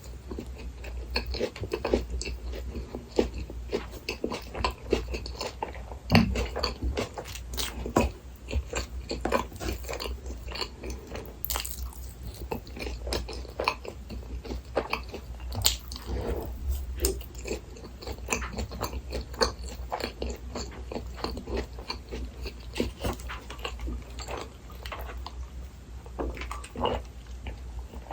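Close-miked eating of a Burger King Texas Chili Whopper set: biting and chewing, a dense, irregular run of small crunches and clicks over a low steady hum.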